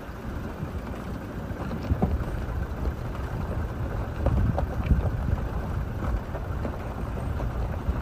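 A vehicle driving along a rough forest track: a steady low rumble with irregular knocks and jolts.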